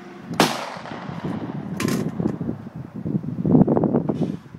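Two pistol shots about a second and a half apart, each a sharp crack with a short ring-out, then a few seconds later a stretch of low rumbling noise.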